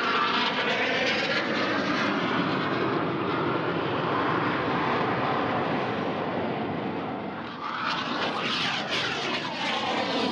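Aermacchi MB-339 jet trainers flying past, a loud steady jet sound with sweeping shifts in pitch as they pass. It dips briefly about seven seconds in, then rises again with another sweeping pass.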